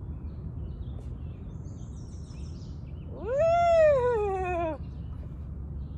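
A boxer dog gives one long whine about halfway through, rising quickly and then sliding down in pitch with a slight waver.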